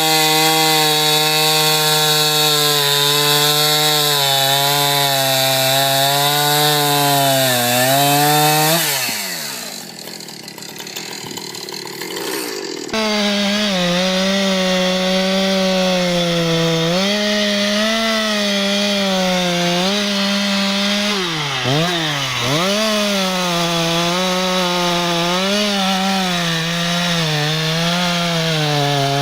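Chainsaw engine cutting through a log, its pitch sagging and recovering as the chain loads up in the wood. About nine seconds in the engine winds down and it goes quieter. Then, after an abrupt change, a chainsaw is running in the cut again, bogging down sharply twice near the middle of that stretch.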